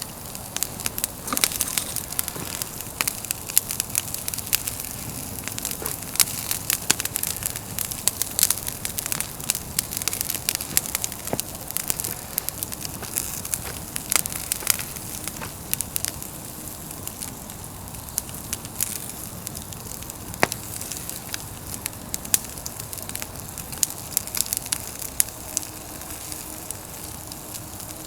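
Pine-log fire crackling, with frequent irregular sharp pops and snaps over a steady hiss of the flames.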